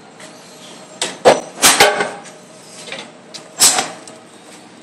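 Metal tool chest and scan-tool cable being handled: a cluster of sharp clanks and knocks about a second in, and another loud clank later on, like a drawer and metal connectors knocking together.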